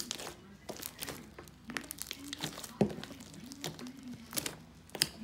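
Hands squeezing and kneading a lump of homemade popcorn slime, making irregular sticky crackles and pops, the loudest nearly three seconds in.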